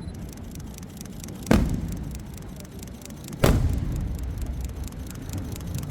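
Two fireworks shells exploding, about two seconds apart, each a sudden loud bang that rolls off into a rumbling echo.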